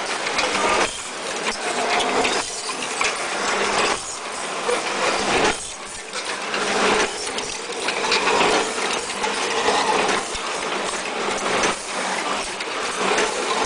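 Dry cat food mixing and packing machine running: continuous metallic clatter of its feeders and gates with kibble rattling through, over a steady hum. The clatter swells and dips in a repeating cycle about every second and a half.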